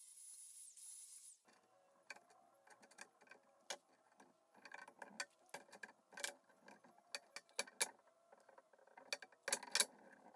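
An angle grinder's flap disc runs briefly against a steel plate, a steady high hiss that cuts off sharply about a second and a half in. Then a steel shaft in pillow block bearings is worked by hand: irregular metal clicks and knocks, ending in a louder clatter near the end as a wooden board is set down.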